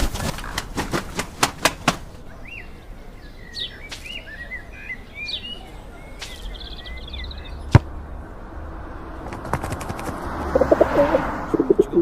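Pigeon wings flapping in a quick flurry, small birds chirping, and pigeons starting to coo near the end, over a low background rumble.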